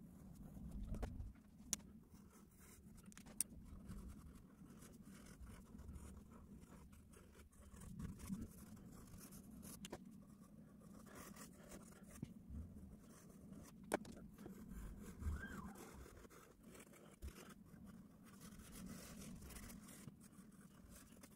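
Faint scratching of pens on paper in short sketching strokes, with a few sharp clicks.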